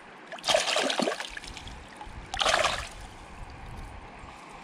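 Two short splashes of water, about half a second and two and a half seconds in, over the steady rush of a river.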